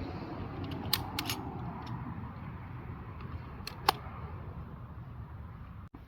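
A few sharp mechanical clicks from handling a Sig Sauer MCX CO2 pellet rifle ahead of firing: three close together about a second in, then two more near four seconds. Under them runs a steady low wind rumble.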